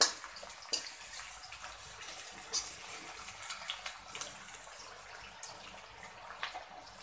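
Sliced onions frying in hot oil in a kadhai: a steady soft sizzle, with a few sharp clicks as a spatula stirs them.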